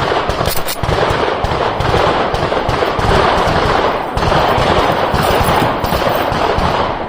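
Rapid, sustained gunfire from several guns firing at once on the neighbouring lanes, shots overlapping into a continuous barrage.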